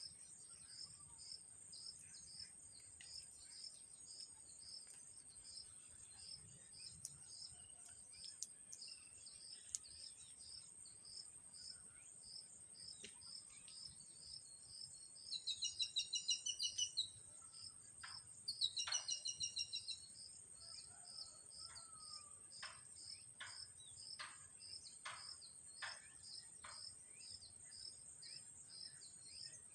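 Insects droning steadily at a high pitch, with a regular chirping about twice a second, typical of crickets. About halfway through, a bird gives two louder bursts of rapid trilled calls, then a series of short, sharp chirps.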